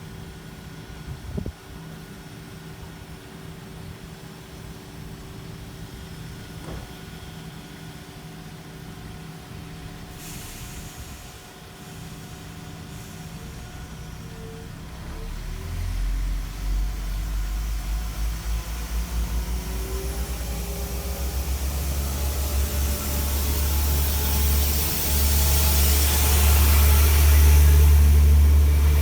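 A train approaching: a low engine rumble comes in about halfway through and grows steadily louder, joined by rising rushing wheel noise toward the end.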